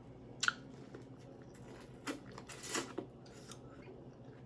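Close-up eating sounds: a person chewing with a few short wet mouth clicks and smacks spaced out over several seconds.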